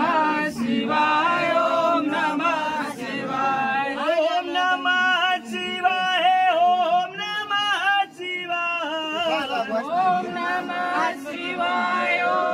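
Men's voices chanting a devotional hymn at a Shiva shrine, unaccompanied, with long wavering held notes through the middle.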